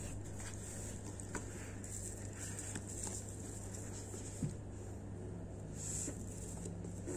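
A paperback book being handled and opened: soft paper rustles and light taps of fingers and pages, over a steady low hum.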